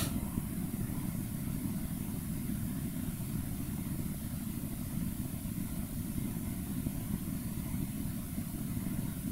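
Steady low rumble with a faint hiss over it, even and unchanging, and one short click right at the start.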